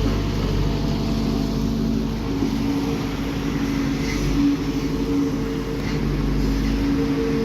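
Diesel engine of heavy road machinery running steadily, its pitch wavering slightly, over a low rumble and a hiss.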